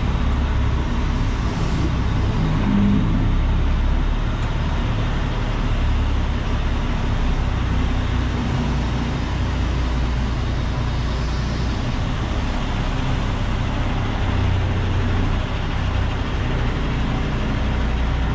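Semi truck's diesel engine running steadily as the truck rolls slowly, heard from inside the cab as a continuous low drone with road noise over it.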